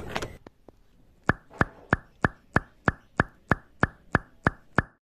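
Water drops plopping into a small cup of water, a dozen evenly spaced drips about three a second that stop near the end.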